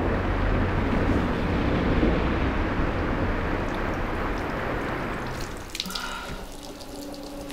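A steady rush of running water that fades away after about five seconds, followed by a few soft tones and light clicks near the end.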